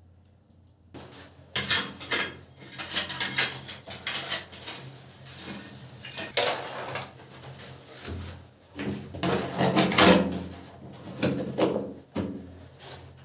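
Irregular knocking, scraping and clattering of objects being handled, starting about a second in.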